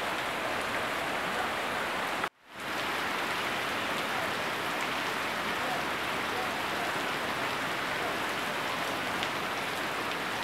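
Heavy rain falling steadily, splashing into puddles and pouring off the edge of a thatched roof. The sound cuts out suddenly about two seconds in and fades back a moment later.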